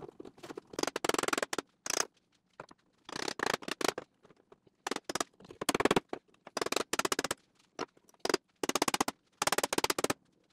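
About a dozen short bursts of rapid metallic clicking and rattling, roughly one a second, as a trimmed steel trailing arm support repair section is worked into place in a positioning jig on a Triumph TR6 frame.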